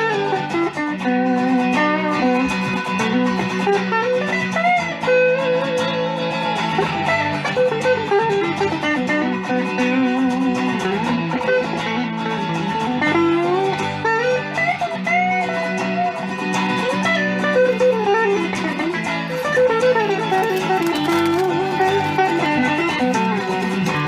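Background music led by guitar: a winding melody line with sliding notes over a steady low accompaniment.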